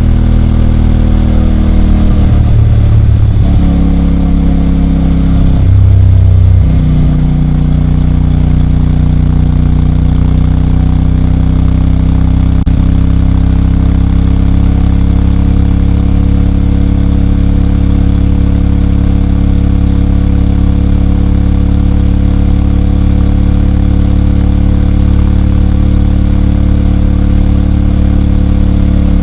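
CFMOTO 450MT's 449 cc parallel-twin engine running. The note breaks and drops back twice, about two and six seconds in, then holds a steady pitch that creeps slowly higher.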